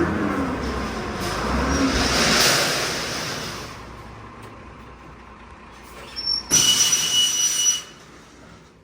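Heavy truck running and fading away, then about six and a half seconds in a loud hiss with a high, steady squeal that lasts about a second.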